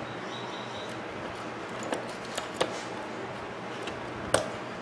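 A handful of sharp clicks and taps over a steady hiss, the loudest near the end: hand tools and plastic blender parts being handled during reassembly of the motor base.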